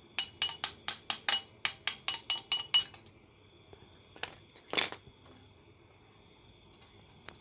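A quick run of sharp metallic clicks, about four or five a second for nearly three seconds. Two more single clicks follow, the second the loudest.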